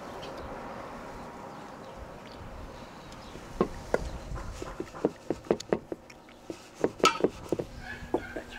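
Flour being poured from a cup into a metal sieve with a soft steady hiss, then a run of light irregular clicks and taps, a few a second, as the sieve is shaken over an enamel basin to sift it. A faint steady buzz starts near the end.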